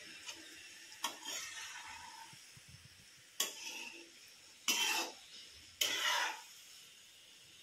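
Gulab jamun balls frying in hot ghee with a low sizzle in a metal kadhai, as a metal slotted spoon is swept through them and scrapes against the pan four times, the last two scrapes the loudest. The balls are being kept moving so they brown evenly.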